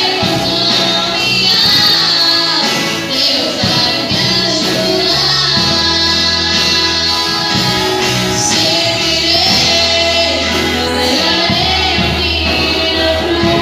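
Portuguese-language gospel worship song: a band playing with singing voices over a steady bass.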